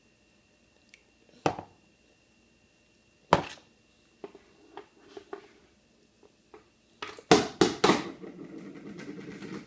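Knocks of hard plastic on a plastic high-chair tray as a toddler handles a plastic plate and bangs at the tray: two single sharp knocks in the first half, a few light taps, then a quick run of loud bangs near the end followed by scuffling.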